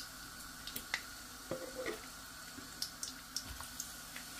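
Egg-battered potato slices frying in hot oil in a pan: a steady sizzle with scattered crackles and pops of spattering oil.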